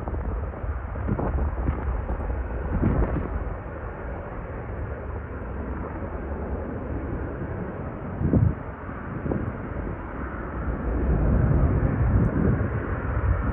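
Jet airliner engine roar, a continuous rushing rumble that grows louder near the end, with a few short low thumps.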